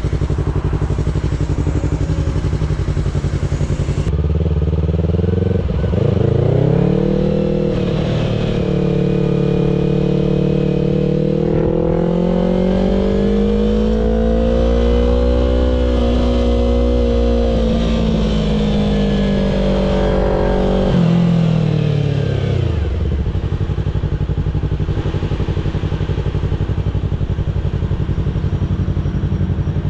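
2016 Yamaha R3's parallel-twin engine idling, then pulling away about six seconds in. Its note rises and holds steady while riding, then falls back to idle as the bike slows to a stop after about twenty seconds.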